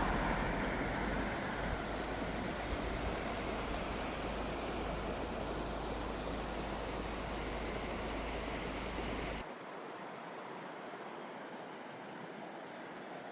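Mountain stream rushing, a steady hiss of flowing water with a low rumble under it; about nine seconds in it cuts abruptly to a quieter, thinner rush of water.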